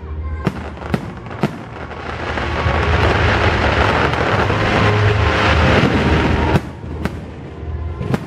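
Fireworks going off: three sharp shell bursts, then a dense crackle for about four seconds from glittering gold stars that cuts off suddenly, followed by two more sharp bangs.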